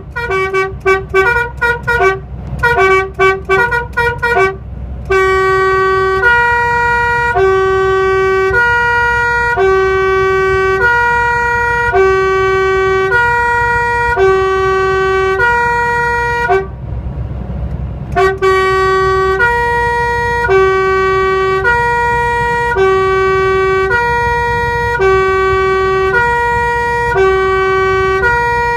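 Truck's musical air horn sounding: quick repeated toots for the first few seconds, then a two-tone call alternating a low and a higher note about once a second, like a French 'pin-pon' siren, broken once by a short pause a little past halfway.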